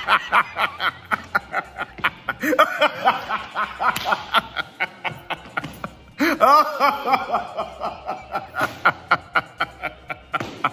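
A man laughing hard in rapid, repeated bursts. The laughter breaks off briefly about six seconds in and then starts again.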